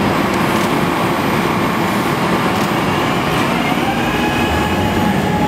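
SEPTA Market-Frankford Line train running beside the platform: a steady rumble, with a whine that rises gently in pitch near the end.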